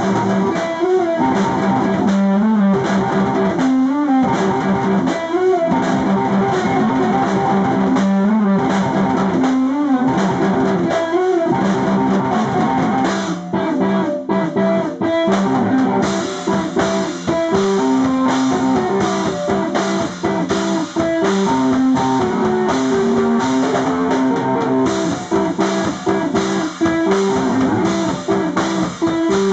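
A live rock band playing loudly: electric guitar over a drum kit, heard close up in a small room.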